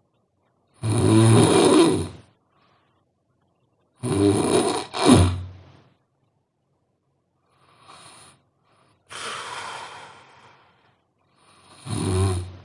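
A sleeping person snoring loudly, each snore a separate breath a few seconds apart: three loud snores (the middle one doubled), with two softer breaths between the second and third.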